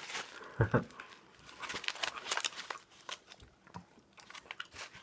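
A person biting and chewing a mouthful of burrito close to the microphone, a string of irregular short mouth sounds.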